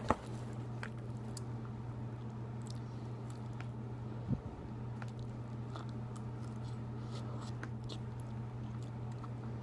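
A person eating soup with a metal spoon: faint chewing and small ticks of the spoon, with one sharper click about four seconds in, over a steady low hum.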